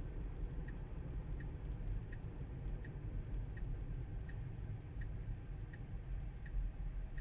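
Tesla turn-signal indicator ticking evenly, about three ticks every two seconds, over the low steady road rumble inside the car's cabin.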